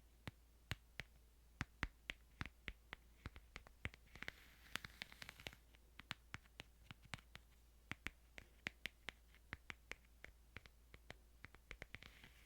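Faint, light, irregular taps and clicks on a Bible, a few a second, with a brief soft rustle about four to five seconds in.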